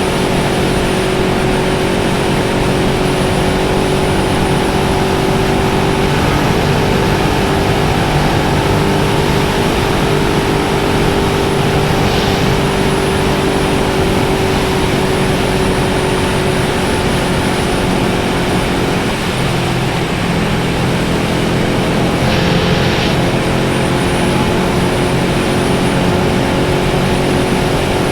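Motorcycle engine running steadily at cruising speed, with wind rushing over the rider's microphone; the engine note eases a little about two-thirds of the way through.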